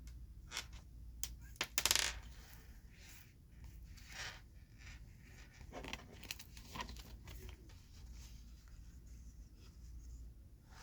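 Jumbo Pokémon cards being handled: a scatter of light taps, clicks and brief rustles, loudest about two seconds in.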